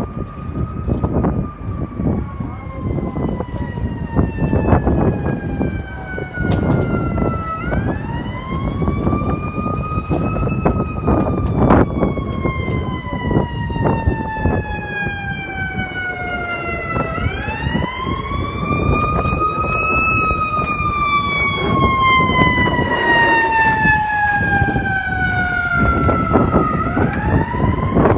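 Siren wailing in slow cycles: each rise climbs over about two seconds, then the tone falls away over about seven seconds, three times in all. It is heard over a loud, steady, rough rumble.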